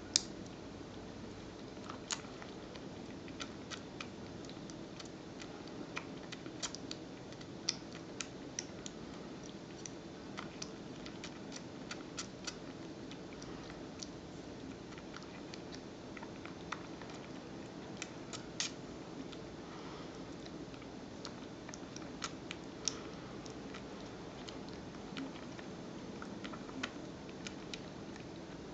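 Himalayan kitten suckling milk from a feeding bottle's teat: soft, irregular little clicks and smacks of its mouth, over a steady low background hum.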